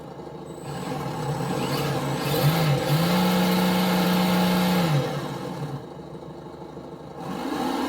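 Simulated engine sound from an ESS Dual+ RC sound module playing through its small speaker: idling, then revving with the throttle in a short blip about two and a half seconds in, followed by a held rev of about two seconds before dropping back to idle.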